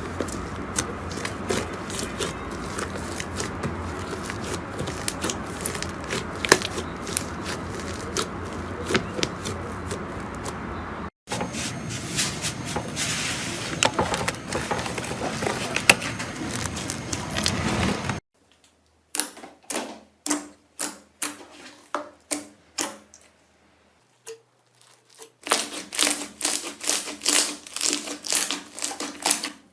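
Slime being squished and pressed by hand, giving dense crackling and clicking pops. Near the middle the sound cuts to a new clip. In the last part it turns into a run of separate short squishes, each with a little pop.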